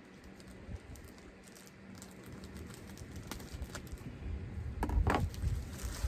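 Hands handling yarn skeins and their packaging: scattered light clicks and rustles, with a louder burst of rustling about five seconds in.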